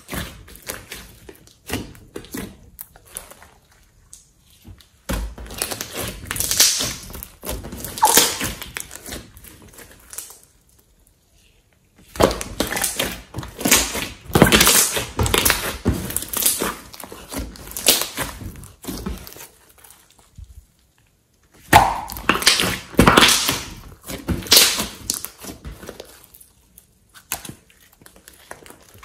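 Glossy slime being squeezed, pressed and stretched by hand, making wet squelches and sticky crackles in irregular runs, with a slime-filled balloon pressed into it at one point. The sound stops twice for about a second.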